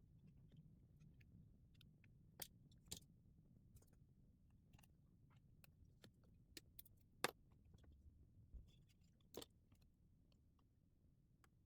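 Faint scattered clicks and taps of small tools and smartphone parts being handled, with a few sharper clicks, the loudest about seven seconds in.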